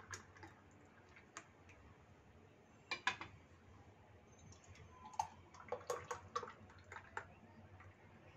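Faint clinks and taps of a steel pan and drinking glasses while milkshake is poured from the pan into the glasses, with a louder knock about three seconds in and a cluster of taps in the second half.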